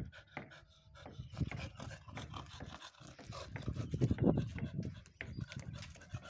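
Golden retriever puppy panting in uneven puffs, louder around four seconds in.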